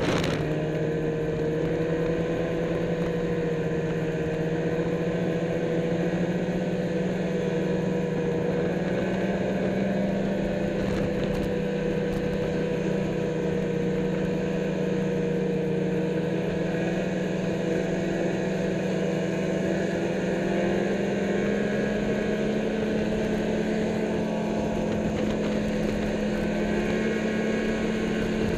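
Snowmobile engine running steadily while under way, a continuous drone whose pitch creeps up slightly about two-thirds of the way through.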